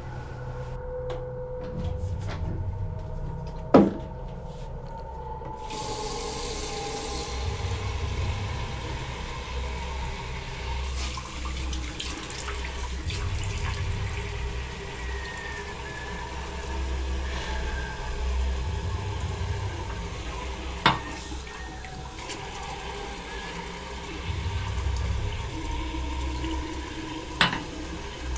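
Water running from a bathroom basin tap into the sink, starting about six seconds in, as hands scoop it up to wash a face. Underneath is a low rumble that swells and fades every few seconds, and three sharp knocks come through, the loudest just before the water starts.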